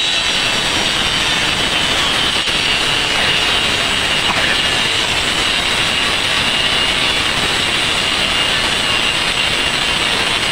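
Handheld electric cutter running at full speed, its blade cutting through a bamboo pole. The motor's high whine sags slightly under load and holds steady.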